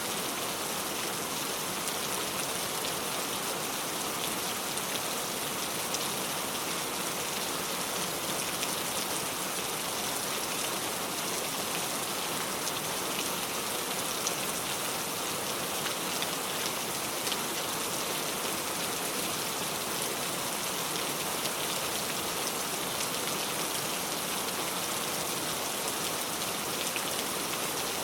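Steady rain falling on a surface, an even hiss with many small drop patters, unchanging throughout.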